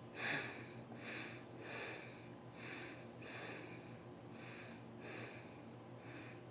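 Soft, rhythmic scratching strokes close to the microphone, about two a second, over a low steady electrical hum.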